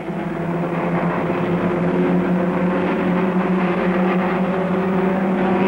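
Formula Junior racing car engines running at high revs, swelling in the first second and then holding a steady note.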